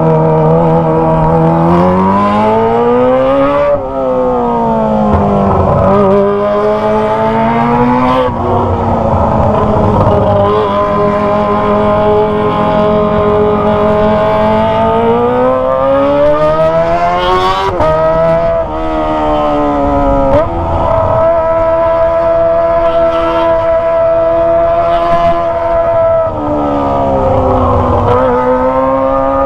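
Kawasaki ZX25R's 250 cc inline-four screaming through a Toce aftermarket exhaust while ridden: the pitch climbs and drops sharply at several gear changes, holds steady for long stretches, then falls and rises again near the end.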